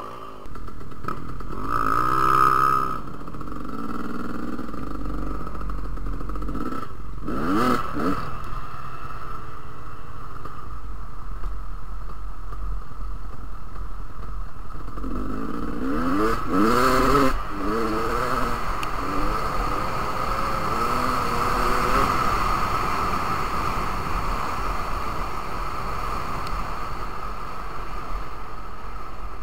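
Dirt bike engines running under way, revving up and easing off several times, with steady rushing noise from the moving bike.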